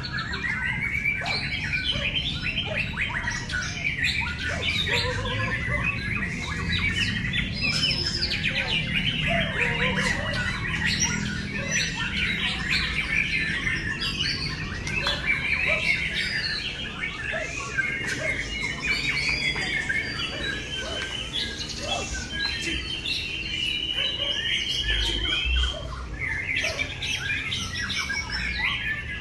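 Several caged white-rumped shamas (murai batu) singing at once: a dense, overlapping stream of whistled phrases and rapid notes, with a long even trill in the last third, over a low background rumble.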